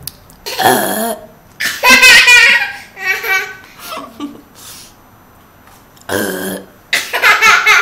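A woman's pretend burps, two of them, each answered by a baby's loud bursts of laughter.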